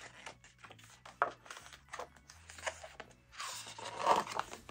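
Board-book page being turned and pressed flat by hands on a wooden tabletop: faint taps and clicks of the stiff cardboard, a sharper click a little over a second in, then a short brushing rustle near the end.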